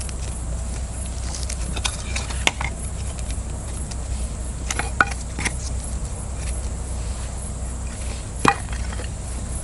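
A few scattered sharp knocks and clicks of things being handled, the loudest about two and a half, five and eight and a half seconds in, over a steady low rumble.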